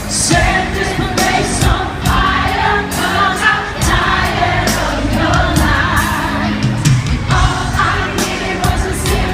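Live freestyle dance-pop played loud, with a woman singing over a steady dance beat.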